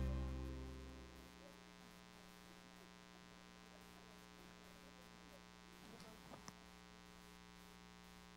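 Music fading out over the first second, leaving a faint, steady electrical mains hum with a few faint indistinct sounds about six seconds in.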